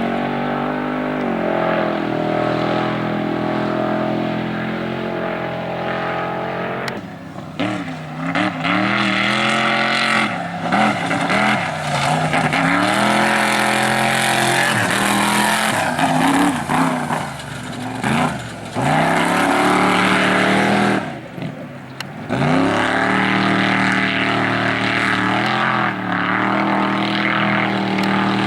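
Off-road race vehicle engines revving hard over and over, pitch rising and falling through the gears, with bursts of hiss in the middle stretch. A steady engine note holds for several seconds at the start and again near the end.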